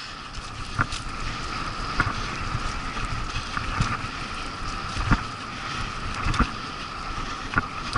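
Dog scooter rolling fast over a dirt forest trail: a steady rolling noise with a constant hum and wind on the microphone, broken every second or so by a sharp knock as the wheels hit bumps.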